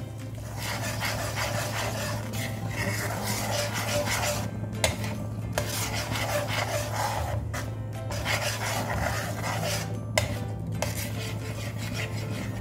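Metal spoon stirring and scraping around a metal pan of thick Cajun sauce: a continuous rasping scrape broken by a few brief pauses, over a steady low hum.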